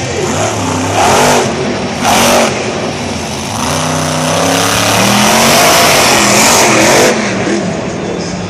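Monster truck's supercharged V8 engine revving hard in repeated bursts, its pitch rising and falling, with a longer, sustained rev in the middle.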